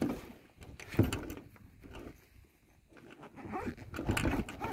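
Hands handling a Welkinland tool backpack: a sharp knock about a second in, then irregular rustling and clinking of the bag's fabric and fittings, busiest near the end.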